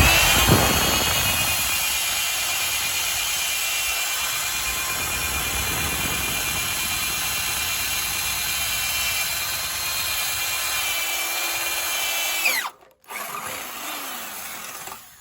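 Electric drill boring out factory spot welds in a car's steel floor pan, a steady high whine of the bit cutting metal. It runs for about twelve seconds, slows with a falling pitch and stops, then runs again more quietly near the end.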